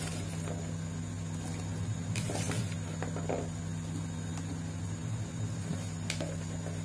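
Cut long beans dropped by hand into a pan of simmering yellow broth, with a brief rustle and splash about two seconds in and a click near the end, over a steady low hum.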